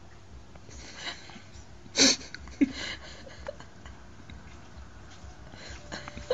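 A dog's breath close to the microphone, with a short loud huff about two seconds in and a brief sharp sound just after.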